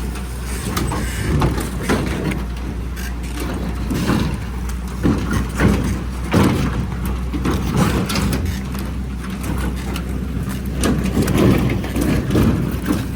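A heavy machine's diesel engine running steadily, with frequent clanks and rattles from the machine's metal body as it moves.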